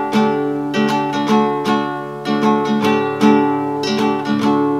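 Music of strummed acoustic guitar, with chords struck in a steady rhythm of about two strokes a second.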